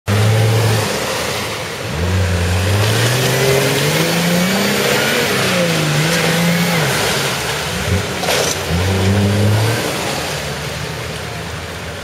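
Nissan Patrol GR off-roader's engine revving up and down under load as the 4x4 churns through deep mud. The revs climb and drop several times, with a brief sharp noise about eight seconds in, and settle lower near the end.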